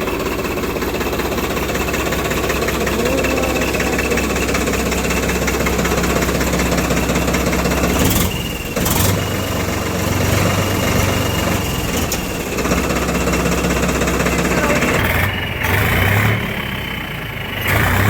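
Engine running with a turbo-style whistle fitted to its exhaust silencer. The engine speed changes several times, and from about halfway through a steady high whistle tone sounds over the engine.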